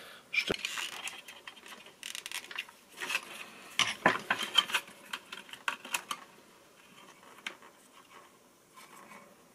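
Small plastic RC steering servo and a screwdriver being handled: scattered clicks, taps and light scrapes of plastic and metal as the servo is worked free and its case opened. The clicking is busiest in the first few seconds and grows sparser and fainter later.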